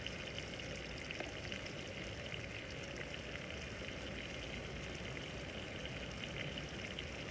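Chicken frying on a tawa griddle, a steady sizzle with fine crackling.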